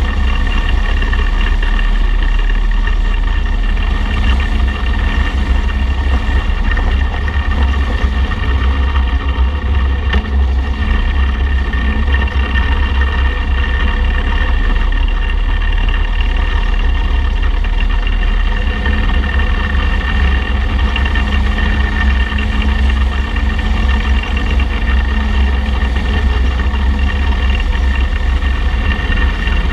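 Motorcycle riding at a steady cruising speed: the engine runs evenly under heavy wind rumble on the low-mounted camera's microphone.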